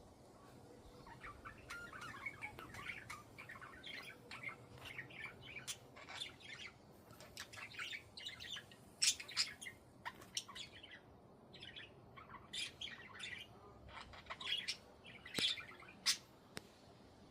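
Budgerigars chirping and chattering: a steady run of quick, short chirps, with a few louder calls in the second half.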